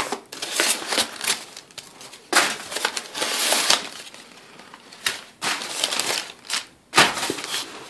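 Crumpled newspaper packing crinkling and rustling as hands grab and pull it out of a styrofoam-lined shipping box, in uneven handfuls with a quieter stretch around the middle.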